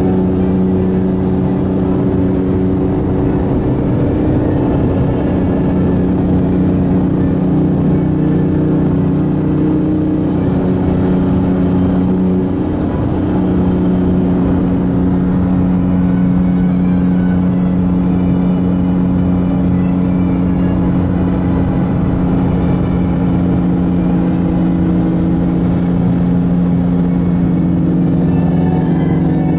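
A car engine running at steady revs, a constant pitched hum that holds almost level throughout, with a slight shift in pitch about halfway through.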